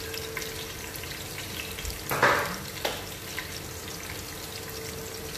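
Whole spices (cloves, bay leaf, cinnamon stick, mustard and cumin seeds, star anise, cardamom) sizzling in hot oil with sliced onion, with small pops throughout and a brief louder hiss about two seconds in.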